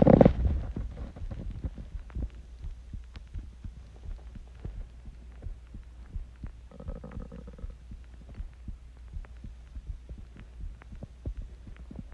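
A person's heartbeat recorded close up: a series of short, low thumps over a steady low hum. A louder burst of noise comes right at the start, and a brief higher tone lasting about a second comes about seven seconds in.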